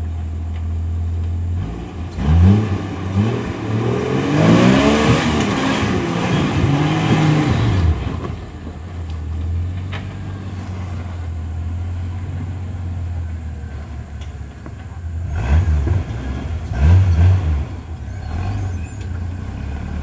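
Rock-crawler buggy's engine idling, then revved hard in rising and falling surges for several seconds from about two seconds in as it claws up a boulder ledge, wheels spinning and throwing dirt. It drops back to idle, with a couple of short bursts of revs near the end.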